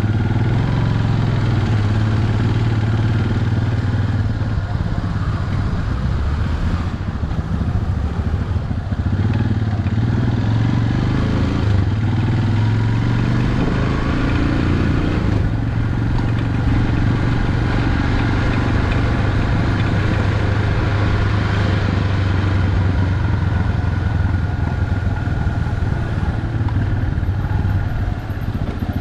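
A vehicle engine running steadily with a constant low hum, heard from a moving vehicle along with road noise.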